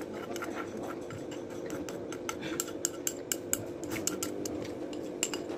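Metal spoon and fork clinking and tapping lightly and irregularly against dishware, over a steady low hum.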